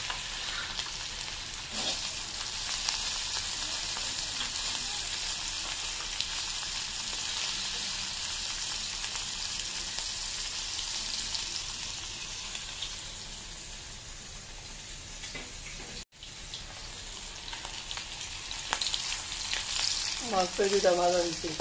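Two pieces of hilsa fish sizzling steadily in hot oil in a wok, a light fry before the fish is mashed into bharta. The sound cuts out for an instant about two-thirds through, and near the end a spatula scrapes the wok as the fish is turned.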